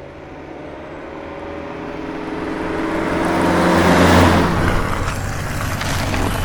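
An engine approaching, growing steadily louder to a peak about four seconds in, then holding fairly loud.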